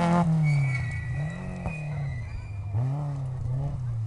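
Rally car's engine at high revs as it passes close by, its pitch dropping sharply as it goes past. The revs then rise and fall repeatedly as the driver works the throttle and gears through the bend, with a thin high squeal for about two seconds early on.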